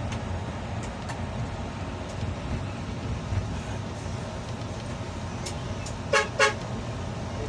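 Two short bus-horn blasts close together about six seconds in, over the steady rumble of the bus's engine and tyres heard from inside the cabin.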